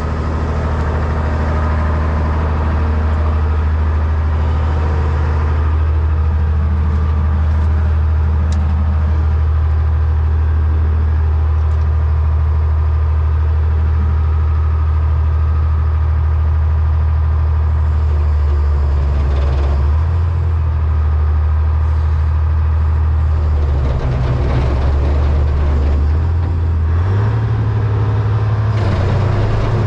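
Diesel engine of a 1978 Hein-Werner excavator running steadily. Its speed changes several times in the second half and settles higher near the end.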